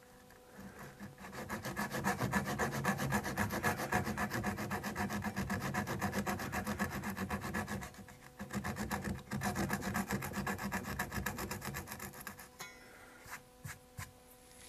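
Japanese flush-cut saw (Gyokucho) cutting the wood in a chair rail's mortise flush with the rail, in fast, even back-and-forth strokes with a short pause about eight seconds in. The sawing stops shortly before the end, followed by two light knocks.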